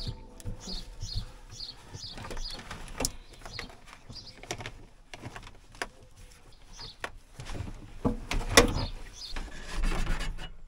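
Clunks, knocks and rattles of the Mazda Bongo's plastic rear heater/air-con unit being worked free of its cables and lifted out of the floor, the loudest knocks about eight seconds in. A bird chirps repeatedly in the background.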